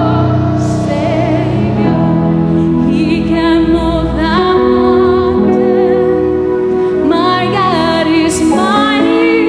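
A woman singing into a handheld microphone over steady instrumental accompaniment, her long held notes wavering with vibrato.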